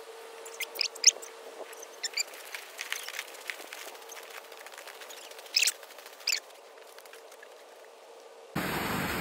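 Footsteps crunching in fresh snow: scattered, irregular crisp crunches, a few of them sharper and louder. Near the end a loud, steady rushing noise starts suddenly.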